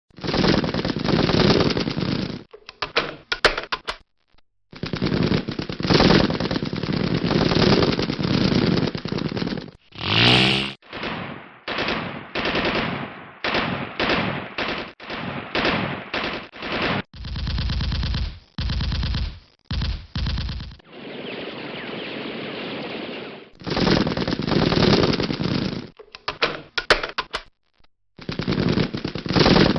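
A run of machine-gun and rifle-fire sound effects, one after another: sustained automatic bursts and shorter bursts separated by brief silences, including a .50-calibre machine gun. About ten seconds in there is a short sound with a wavering, sweeping pitch.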